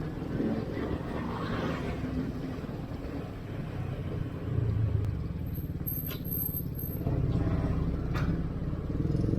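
Vehicle engines rumbling steadily in city road traffic, as heard riding a motorcycle. Two short clicks come in the second half.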